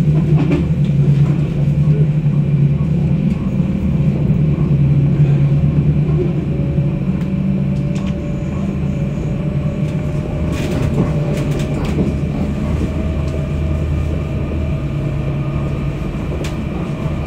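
Tram running along its track, heard from inside the car: a steady low rumble with a faint whine that slowly rises in pitch, and a few sharp clicks about ten seconds in.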